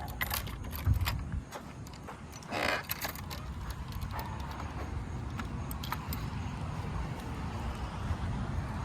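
A hiker's footsteps on the trail with scattered light clicks over a low steady rumble, and a brief rustle about two and a half seconds in.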